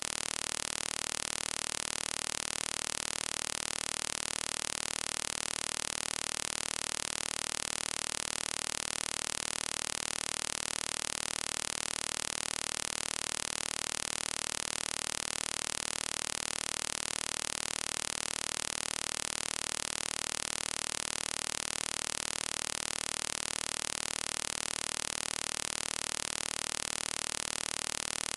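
Steady, even hiss of static that does not change at all, with no distinct events in it.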